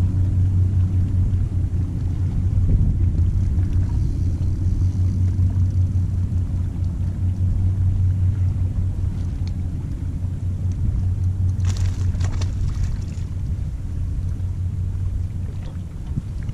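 A steady low rumble with a hum underneath, and a brief hiss about twelve seconds in.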